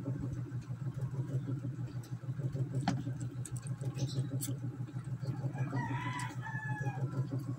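Eating by hand: chewing of chicken adobo and rice with a few sharp clicks, over a steady low hum. About six seconds in comes a short animal call, about a second long, that falls slightly in pitch.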